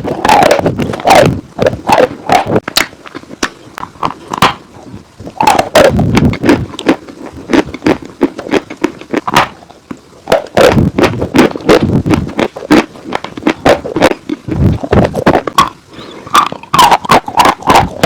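Dry chalk and clay being bitten and chewed close to the microphone: a dense run of sharp crunches and crackles coming in clusters, with short lulls between them.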